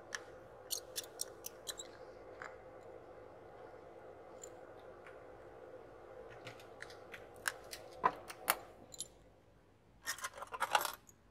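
A precision screwdriver working the tiny screws of an iPhone XR's battery connector cover, making small sharp metallic clicks and ticks, with a dense burst of clicking near the end. A faint steady hum sits under the clicks.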